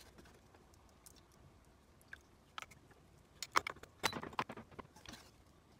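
Chopsticks clicking and tapping against glass food containers and a pan while cooked leafy greens are portioned, a quick cluster of small clicks in the second half.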